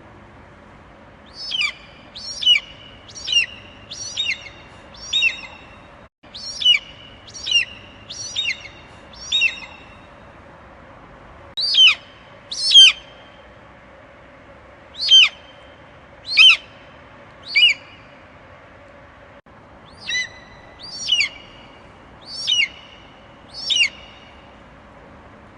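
Eagle calling: short, high, piercing cries repeated about once a second, in runs of two to five with brief pauses between runs.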